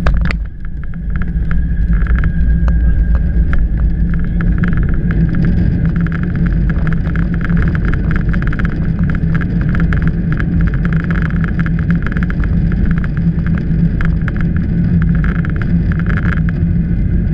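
Boeing 737-700 touching down with a single thump, heard from inside the cabin. The noise then builds about a second later into a loud, steady low rumble of the landing rollout, with many small rattles throughout as the jet decelerates on the runway with its spoilers up.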